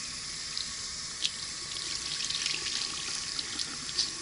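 Tap water running steadily into a sink, with a few brief sharper splashes as something is held under the stream.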